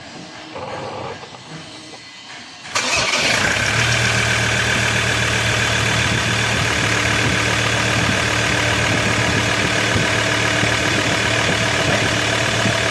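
Ford Everest engine starting about three seconds in, then running at a steady idle.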